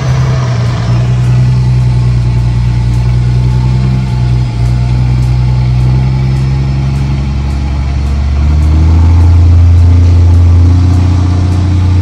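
Logging truck's diesel engine running with a steady low rumble, rising in pitch and getting louder about eight seconds in as the truck pulls away.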